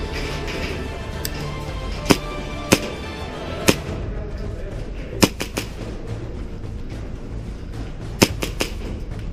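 Sharp pops of airsoft gunfire: single shots, then two quick strings of three, over background music.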